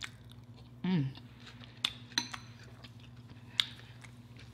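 Eating sounds: a few sharp clicks of a metal fork, with a short falling "mm" about a second in, over a steady low hum.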